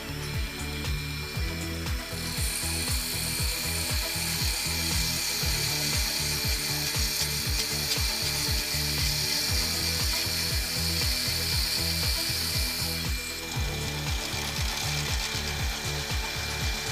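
Forstner bit in a drill chuck boring into the end grain of a maple blank spinning on a wood lathe: a steady high cutting noise that starts about two seconds in and eases off near thirteen seconds. Underneath runs background music with a steady beat.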